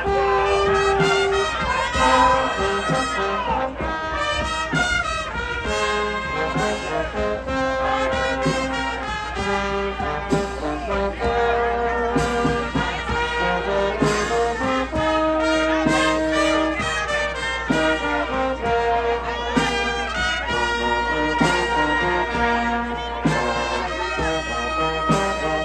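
Live brass band with trumpets playing a melody, a steady run of held and changing notes.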